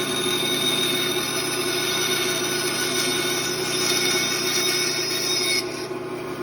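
Bandsaw running and cutting a curve in a wooden workpiece, with a steady high-pitched cutting whine over the motor. The cutting whine stops suddenly about five and a half seconds in, leaving the saw running a little quieter.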